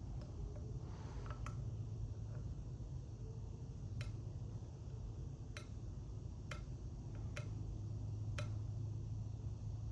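Lock picks working the wafers of an Illinois Duo padlock: sharp, irregularly spaced clicks, about half a dozen clear ones, as the pick moves the wafers under tension. A steady low hum runs underneath.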